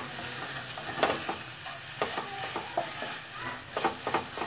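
Wooden spatula stirring fenugreek-leaf sabzi in a kadhai, mixing it: irregular scrapes and taps against the pan over a steady sizzle of frying.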